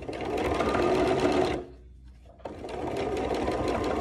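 Home electric sewing machine stitching in fast steady runs while top stitching a seam, stopping about one and a half seconds in and starting again about a second later.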